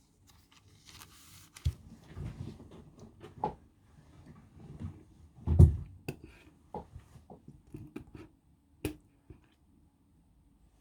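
Pen and paper being handled on a desk: scattered light taps and clicks with some paper rustle. The loudest is a thump about five and a half seconds in.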